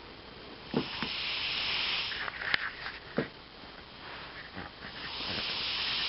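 Russian Blue cat snoring: two long, hissing breaths about four seconds apart, with small clicks and snuffles between them.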